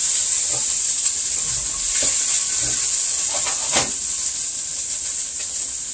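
Ground garlic and hot pepper sizzling steadily in hot oil in a stainless steel pot, with a few brief scrapes of a wooden spoon stirring it, the clearest a little over halfway through.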